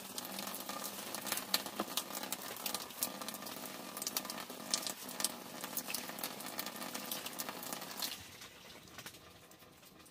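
Hands rubbing and squeezing rice grains in water in an aluminium basin while washing the rice: a dense, grainy patter of small clicks and wet rustling. It stops about eight seconds in, leaving only a faint hiss.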